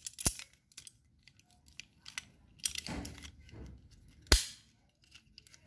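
Steel double-ended wrenches being handled: a few light metal clicks, a short scraping rustle about three seconds in, and one sharp knock a little past four seconds as a tool is set down.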